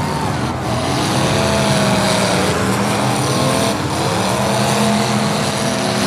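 Several full-size derby cars' engines racing on a dirt figure-8 track, overlapping engine notes rising and falling as the drivers rev and lift.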